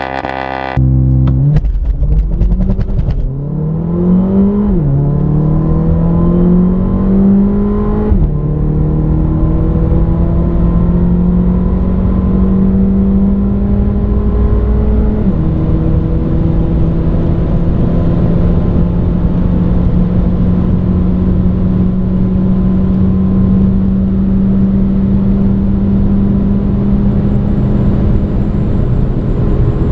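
Mercedes-AMG CLA 45's turbocharged four-cylinder engine at full throttle from a launch-control start. The engine note climbs in pitch in each gear and drops sharply at quick dual-clutch upshifts about 3, 5, 8 and 15 seconds in, then rises slowly through the long top gear toward top speed.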